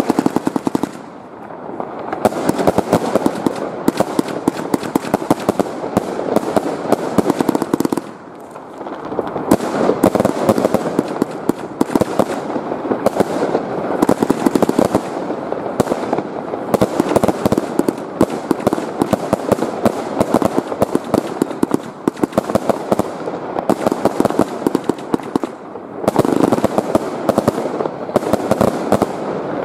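Fireworks going off in quick succession: a dense, continuous crackle of many small bangs and pops, with short lulls about a second in, about eight seconds in, and near the end.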